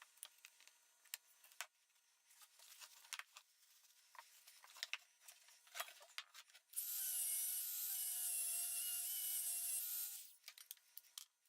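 Small clicks and knocks of parts and tools being handled, then about seven seconds in a small power tool runs for about three seconds with a steady whine and hiss before stopping.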